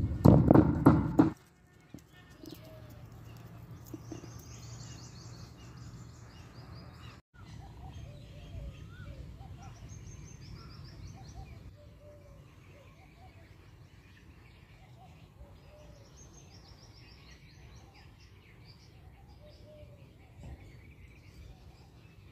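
Small birds chirping and trilling on and off in the background. In the first second or so there is a louder burst of noise that cuts off sharply.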